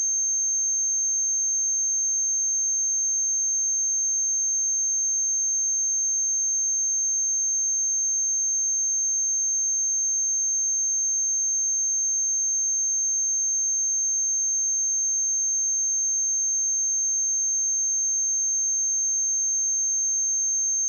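A pure 6354 Hz sine-wave test tone, one steady high-pitched note held at constant level.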